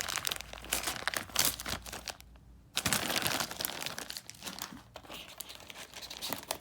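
Plastic packaging crinkling as it is handled, in two spells with a short pause about two and a half seconds in.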